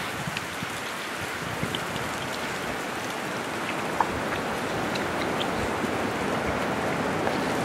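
Steady rushing outdoor noise with no words, and a few faint clicks of a knife on a metal pan.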